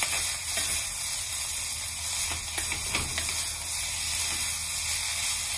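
Beef and egg fried rice sizzling in a hot pan, a steady hiss, with a few short scrapes and taps of a wooden spatula as it is stirred.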